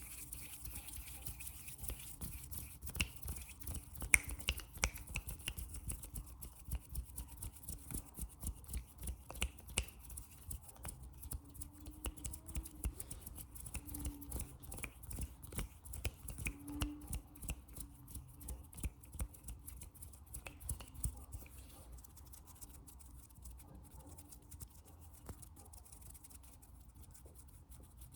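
ASMR hand sounds and fast tapping: quick, irregular taps and finger clicks, many a second, growing sparser and softer after about twenty seconds.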